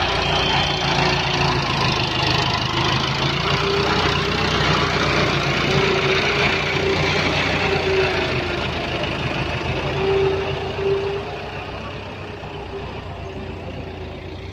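Farm tractor's diesel engine running steadily at work, hauling a loaded sand trolley. Its level drops about eleven seconds in.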